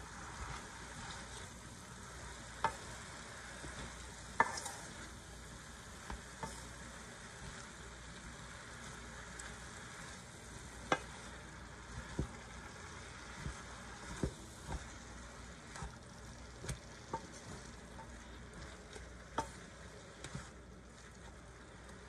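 Wooden spoon stirring shredded cabbage and tomatoes in a metal pot over a steady soft sizzle of frying, with a dozen or so sharp knocks of the spoon against the pot at irregular intervals.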